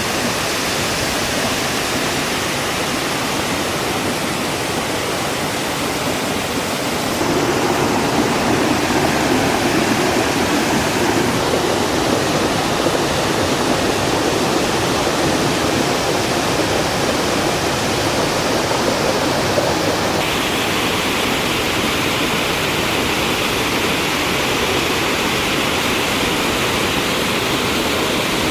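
Waterfall water pouring and splashing in a steady, loud rush. The sound changes in tone twice, at about 7 and 20 seconds in, getting fuller in the low-mid range and then brighter.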